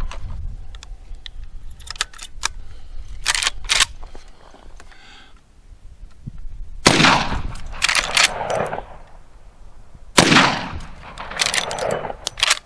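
Two shots from a lever-action rifle firing .38 Special +P rounds, about three seconds apart, each followed by a long echo. Before them come several sharp metallic clicks of the action being handled, and more clicks follow each shot as the lever is worked.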